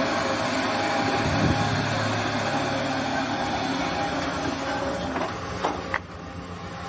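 Sumitomo SH210 excavator's diesel engine running steadily at work, heard under a constant machinery hum, with a few sharp knocks between about five and six seconds in.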